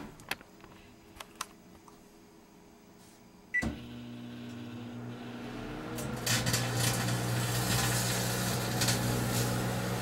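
Microwave oven: a few button clicks, then a short beep about three and a half seconds in as it starts, and the steady low hum of the magnetron and fan. From about six seconds a crackling hiss of sharp ticks joins the hum: the halved grape arcing into plasma.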